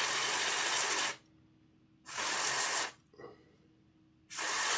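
Aerosol contact cleaner hissing out of its can in three blasts, flushing oil and gunk out of a small model-locomotive motor: one blast stops about a second in, a second comes a second later, and a third starts near the end.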